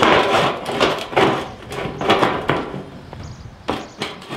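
Stainless-steel smoker hood being settled over its base and fastened, with irregular metal clanks and knocks, several a second.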